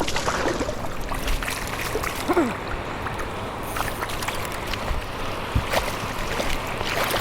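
River water rushing steadily, with scattered short knocks and clicks over it.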